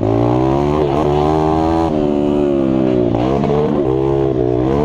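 Mini bike engine running hard under racing throttle, its pitch climbing and falling as the rider works through the revs, with quick drops about two seconds in, a little after three seconds and near the end.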